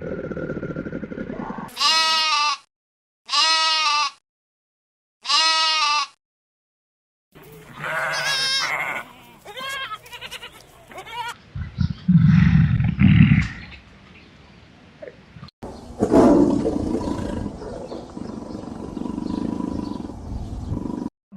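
Animal calls in separate edited clips: a goat bleating three times, each call under a second long with dead silence between. Then a run of other, shorter animal calls and a loud low grunting noise.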